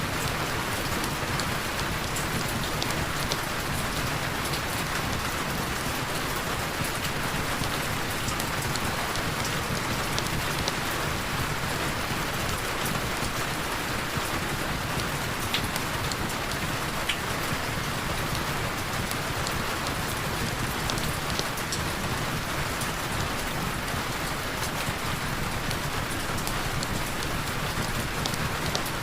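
Heavy rain falling steadily, an even hiss of rain with scattered sharp drop ticks.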